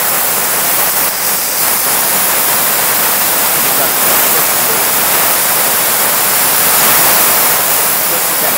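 Hand-held high-pressure water spray gun hissing steadily as it flushes a bleached-out stain from fabric on a spotting board.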